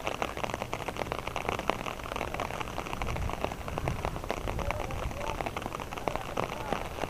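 Steady rain falling, with many drops ticking close to the microphone in a dense, irregular patter.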